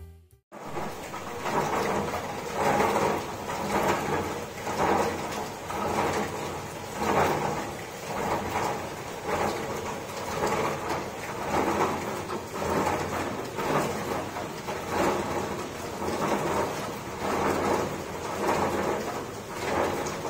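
Rain falling steadily, a rushing noise that swells and fades about once a second.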